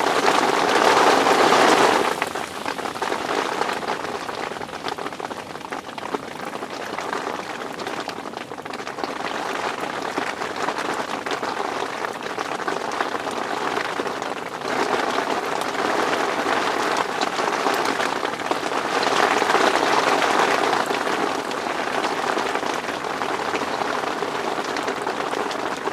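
Heavy downpour pelting down in a steady hiss, loudest for the first two seconds, easing off, then building again from about fifteen seconds in.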